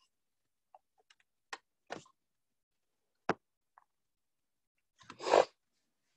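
Scattered soft knocks and one sharp click from someone doing lunges on a hard floor, picked up by a webcam mic between silent gaps. About five seconds in comes a loud, half-second rush of noise.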